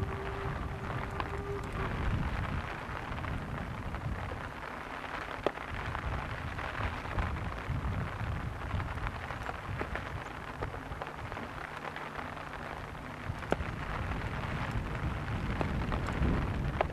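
Distant steam locomotive working hard: a steady rumble and hiss of exhaust with faint clicks, in the rain. A whistle note sounds at the start and cuts off about two seconds in.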